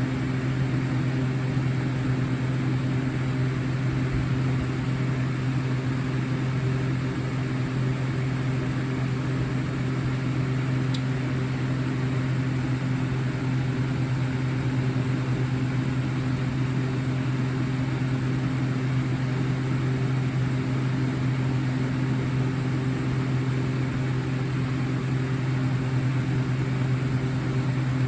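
Steady low electrical hum with a couple of evenly spaced higher tones, unchanging in level, like a fan or appliance motor running; a faint click about eleven seconds in.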